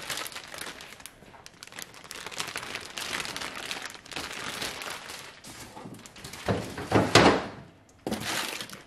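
Clear plastic bag crinkling and rustling as a bagged motorcycle center stand is handled and lifted out of a cardboard box, with a few louder rustles and bumps near the end.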